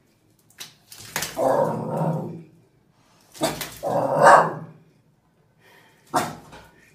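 Dogs barking and growling in short outbursts: a few sharp sounds and two longer pitched calls of about a second each, the loudest about four seconds in.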